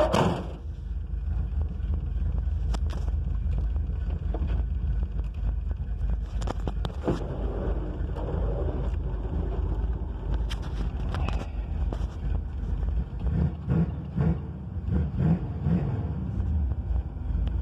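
1986 Monte Carlo SS's 355 small-block Chevy V8 with a hydraulic roller cam, idling steadily while still warming up after a cold start with no choke, heard from inside the car. The idle turns lumpier for a few seconds near the end.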